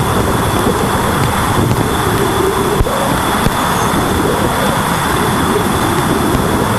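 Sonified spacecraft radio and plasma-wave recording: a steady rushing static with a thin high whine and a few sharp clicks.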